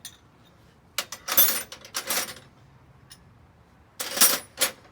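Short bursts of metallic clinking and rattling in three clusters, about a second in, around two seconds and near the end, as parts or tools are handled on the dirt bike. No engine is running.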